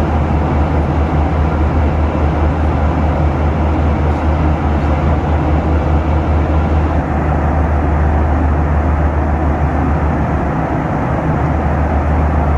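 Steady in-flight cabin noise of a Boeing 737-800 in cruise: a deep engine drone under the rushing hiss of airflow. The hiss thins a little about seven seconds in.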